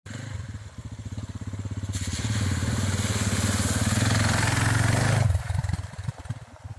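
Off-road dirt bike engine growing louder as the bike rides up and passes close by, then dropping off suddenly about five seconds in and carrying on fainter as it rides away.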